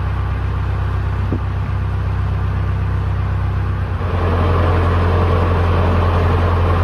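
Narrowboat diesel engine running steadily with a low hum, getting louder about four seconds in.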